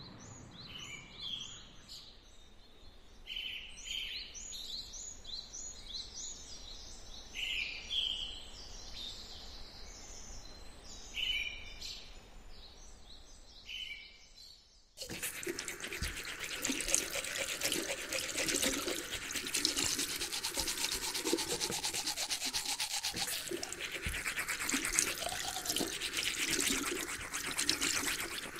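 Small birds chirping in short, scattered calls. About halfway through, this cuts suddenly to a toothbrush scrubbing briskly against teeth, which is louder and keeps going.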